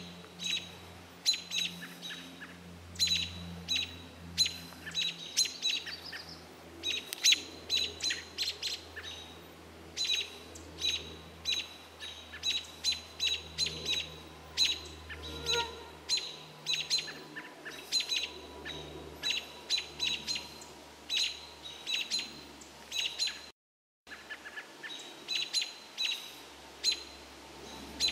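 American robins giving repeated sharp alarm calls, a rapid run of short high chirps, several a second, now and then bunched together. They are scolding a great gray owl in their territory. The sound drops out for a moment about three-quarters of the way through.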